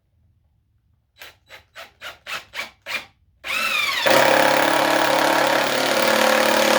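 Cordless drill working into treated 2x6 lumber: about seven short trigger blips that grow louder, then a long steady run that starts about three and a half seconds in with a rising whine as the motor spins up. It is loud.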